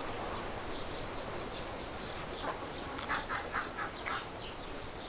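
Ducks quacking in the background, with a quick run of several calls about three seconds in.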